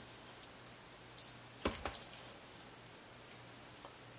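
Thick peanut stew being spooned out of an Instant Pot into a bowl: a few light clinks and one louder knock about a second and a half in, over a faint low hum.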